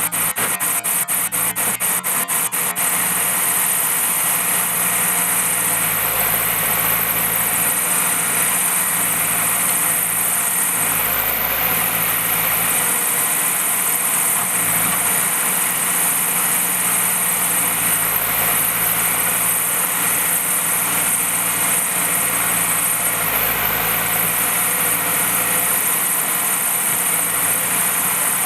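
Diesel engine of heavy earthmoving machinery running steadily. A fast run of sharp ticks sits over it for about the first three seconds.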